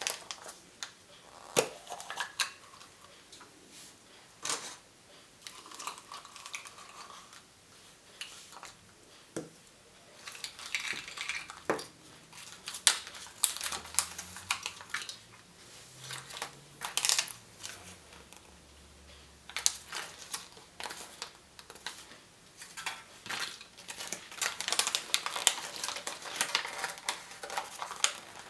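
Surprise eggs and their plastic toy capsules being handled and opened by hand: irregular sharp clicks and taps of hard plastic, with a couple of stretches of denser rustling and crinkling.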